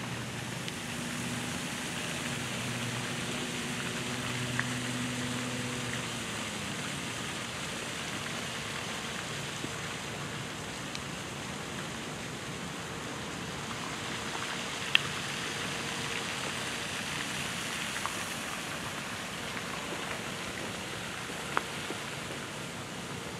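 Steady rushing outdoor background noise with a few sharp clicks; a low hum fades out about six seconds in.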